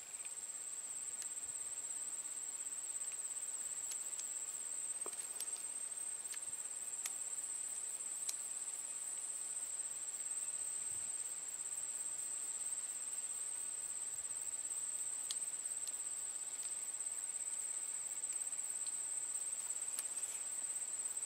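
Insects calling in one steady, high-pitched, unbroken drone, with a few faint scattered clicks.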